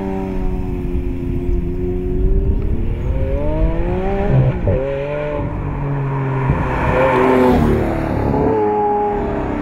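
Lamborghini Aventador LP700-4's V12 engine revving up and down as the car is driven through bends. Its pitch eases off and climbs again several times, with a sharp break in the pitch about four and a half seconds in.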